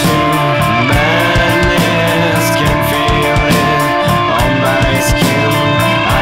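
Rock music led by guitar, with sliding guitar notes over a steady drum beat.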